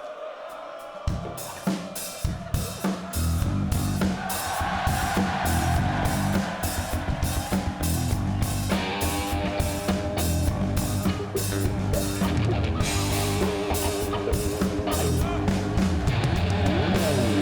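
Live house band starting up a tune. A steady drum-kit beat comes in about a second in, a bass line joins soon after, and further instruments such as guitar come in around the middle.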